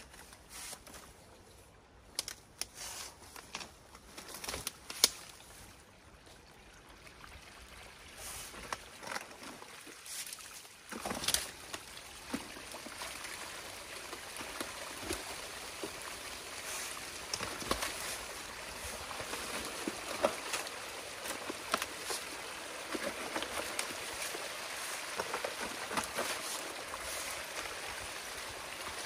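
Water starting to rush through a freshly opened breach in a beaver dam, from about eight seconds in, the flow growing steadily louder. Over it, scattered cracks and knocks of sticks and mud being pulled out of the dam with a long-handled tool.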